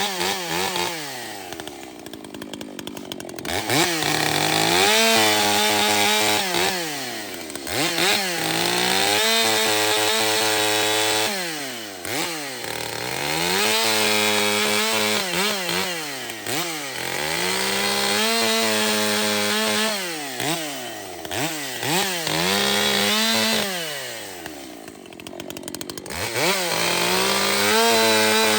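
Gas chainsaw cutting wood: the engine revs up to full throttle, runs through the cut and drops back toward idle, over and over every few seconds.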